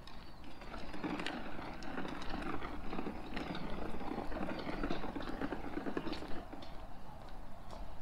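Footsteps on a brick-paved path, a steady run of short irregular steps.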